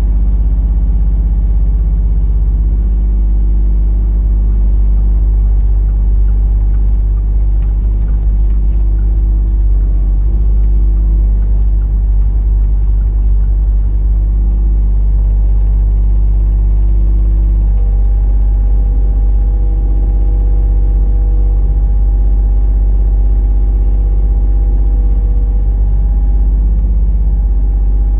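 Mini excavator engine running steadily and loudly, its tone shifting slightly about three seconds in and again past halfway.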